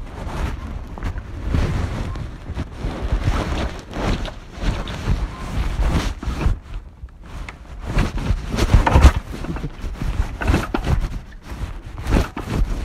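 Wind buffeting the microphone in uneven gusts, a rumbling that rises and falls.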